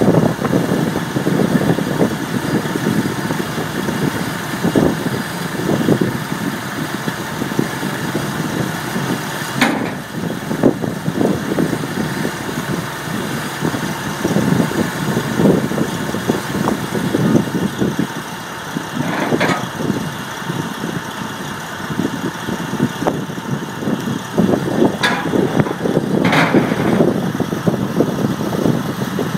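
An engine running steadily at idle, with four sharp clanks scattered through, the last one ringing briefly.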